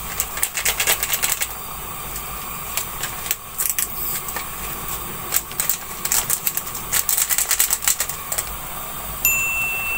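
Large pot of water and chickpeas heating toward the boil, crackling with irregular clicks and pops over a steady hiss. A brief high beep comes near the end.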